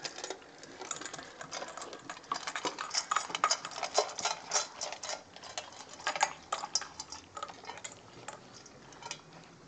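Dog eating dry kibble from a stainless-steel bowl: quick, irregular crunching and clicking of the kibble against the metal, busiest in the middle and thinning out near the end.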